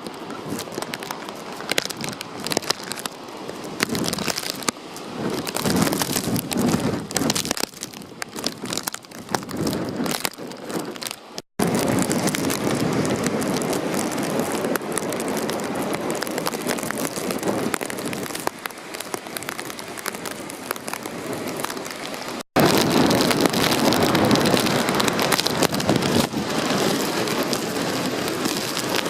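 Typhoon wind and rain. It comes in gusty swells at first, then turns to a steadier rush after each of two abrupt cuts, and is loudest in the last part.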